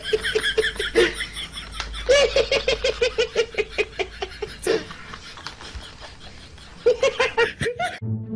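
A person laughing hard in three bouts of rapid, high-pitched 'ha-ha-ha' pulses.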